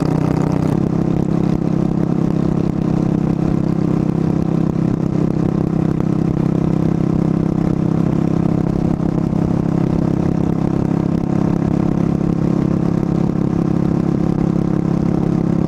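Motorcycle engine running at a steady highway cruise with no throttle changes, heard from the bike's own camera over a steady rush of wind and road noise.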